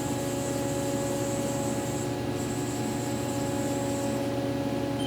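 Haas DT-1 CNC drill/tap center running while its Y axis is jogged: a steady machine hum of several tones with a high whine that drops out briefly about two seconds in and stops after about four seconds.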